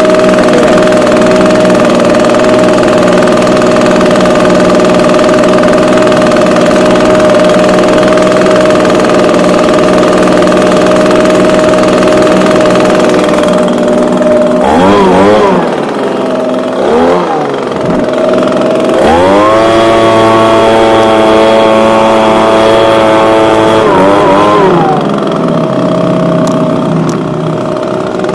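Echo ES250 handheld blower's small two-stroke engine running steadily at a raised idle, then blipped twice so the pitch dips and swings, then opened up and held at high revs for about five seconds before it drops back to steady running.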